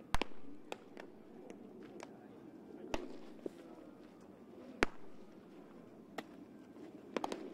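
Baseballs popping into catchers' leather mitts in a busy bullpen, several pitchers throwing at once. Sharp pops come at irregular intervals, three of them loud and the rest fainter from farther down the line.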